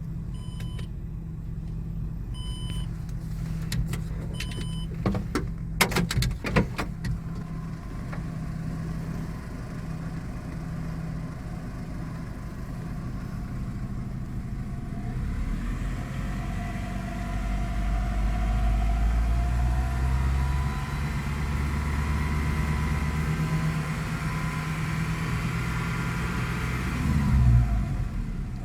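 Great Wall Hover H5's Mitsubishi petrol engine running: it idles at first, then revs rise about halfway through and are held higher before dropping back near the end. It runs evenly, with no knock from the timing-belt drive. A few sharp clicks come about five to seven seconds in.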